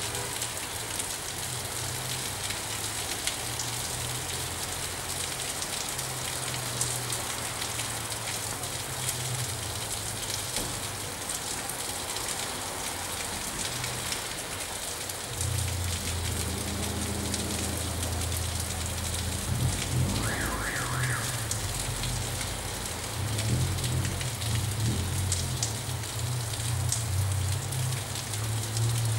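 Steady rain falling on pine branches, an even hiss with fine drip ticks. A low rumble swells and fades beneath it, louder in the second half, and a brief higher sound comes about two-thirds of the way through.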